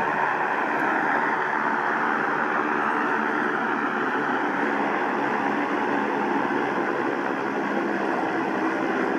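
Large homemade multirotor drone built to carry a person, hovering: its electric motors and big propellers make a steady buzzing whir with a hum of several low tones underneath.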